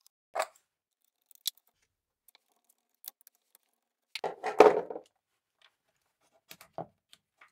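Small hand tools and grinder parts being handled: scattered clicks and light clatters, with a louder rattling clatter about four to five seconds in.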